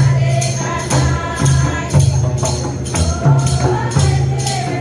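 Adivasi folk dance music: voices singing a melody over a steady percussion beat of about two strikes a second.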